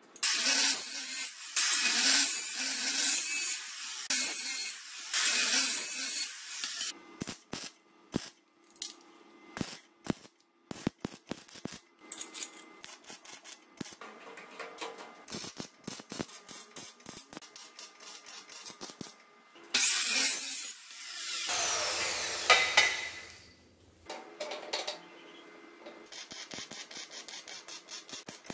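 MIG welder arc crackling as steel square tubing is tack-welded onto a cargo box frame. It comes in loud bursts, the longest over the first several seconds and another about two-thirds of the way through, with scattered clicks between.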